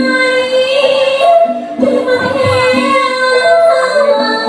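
A singer holding long sung notes over musical accompaniment, the pitch stepping from note to note.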